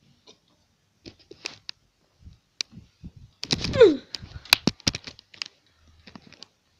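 Handling noises near the microphone: scattered clicks and knocks, with a louder jumble about three and a half seconds in that holds a short falling squeak.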